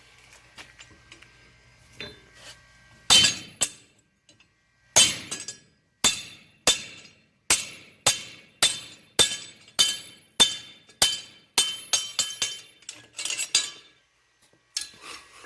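Hand hammer striking hot iron on an anvil while forging: sharp, ringing metal blows at roughly two a second, starting about three seconds in, with a quicker run of strikes near the end.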